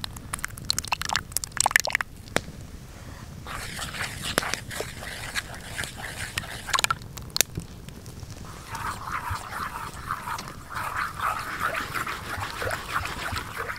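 A thick white liquid is poured onto spice powder in a black frying pan, and a utensil then stirs it into a batter. There are sharp clicks of the utensil against the pan early on, then steady wet stirring and scraping through the second half.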